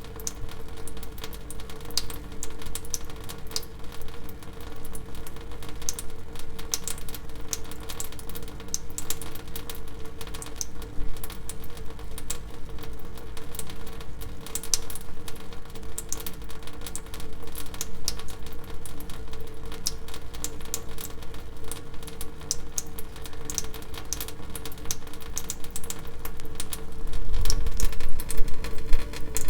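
Water dripping, many drops a second falling irregularly, over a steady low hum. A louder low rumble swells briefly near the end.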